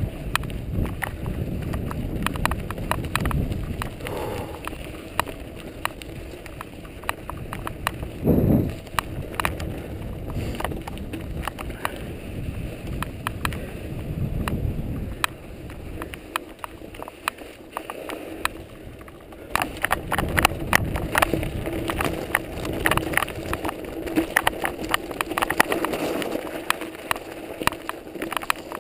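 Mountain bike riding downhill over snow and then rocky gravel. Wind buffets the microphone in a low rumble, and tyre noise and sharp rattles and clicks from the bike come with the bumps. The rattling grows much denser and busier about two-thirds of the way in, as the ground turns rocky.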